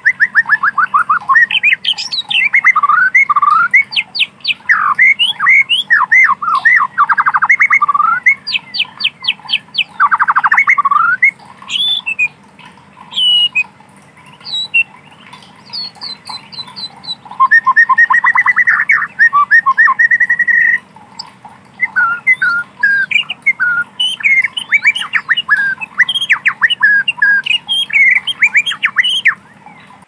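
White-rumped shama singing a fast, varied song of loud whistled phrases, trills and rapid repeated notes, in bursts with short pauses between them, including a long run of rapid notes a little past the middle.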